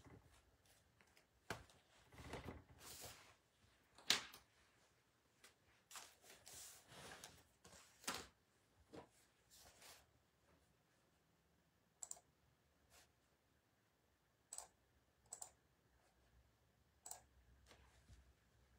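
Faint handling noise: scattered short rustles and clicks, with one sharper click about four seconds in and a few isolated ticks in the second half, otherwise near silence.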